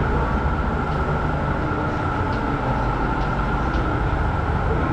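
Steady drone of a paint booth's ventilation fans, a low rumble with a faint steady whine on top and a few light ticks.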